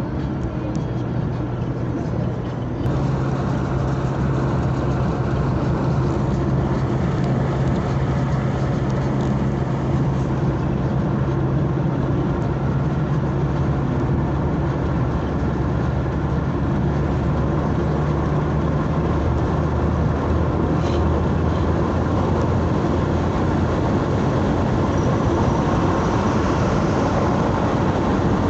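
Engine and road noise heard from inside a moving vehicle, a steady low engine hum over tyre rumble. The engine note steps up and gets louder about three seconds in and changes pitch again around twenty seconds in.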